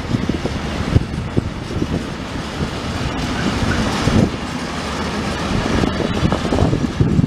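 Freight train of empty container flat wagons rolling past: a steady rumble of wheels on rail with frequent irregular knocks and clanks from the wagons.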